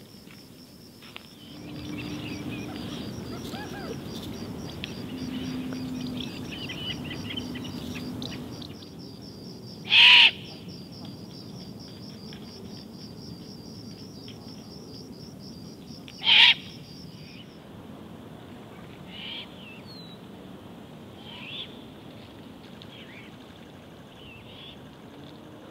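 Great horned owlets' begging screech: two harsh, hissing shrieks about six seconds apart, over a steady high pulsing trill, with a few faint calls after them.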